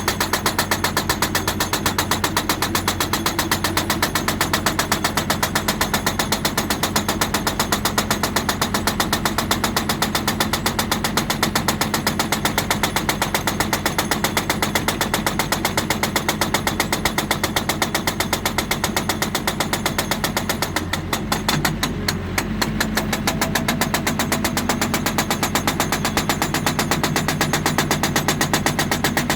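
Hydraulic breaker on a JCB 3D backhoe loader hammering rock: a fast, even train of blows over the running diesel engine. The hammering briefly eases about three-quarters through.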